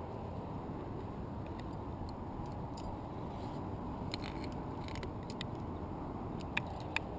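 Steady low rush of wind on the camera's microphone, with scattered light metallic clicks of climbing carabiners and quickdraws on the harness, and two sharper clicks near the end.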